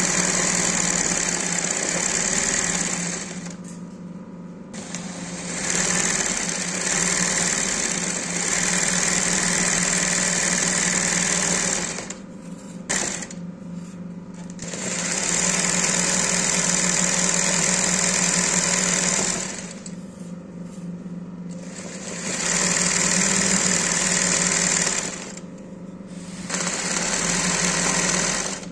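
Industrial embroidery sewing machine stitching a satin-stitch flower into fabric held in a hoop. It runs in about five bursts of a few seconds each, stopping briefly between them while the hoop is repositioned. A steady motor hum carries on through the pauses.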